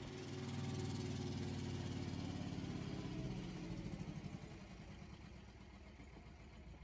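Small tractor's engine running as the tractor pulls away, a low steady drone that fades over the second half.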